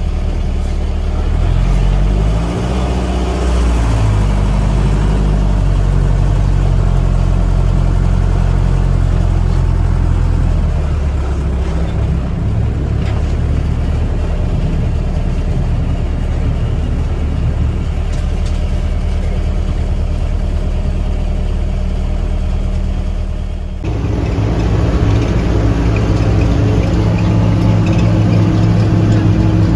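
Mitsubishi bus diesel engine running under way, with the revs rising and falling over the first few seconds and then holding steady. The sound changes abruptly about 24 seconds in.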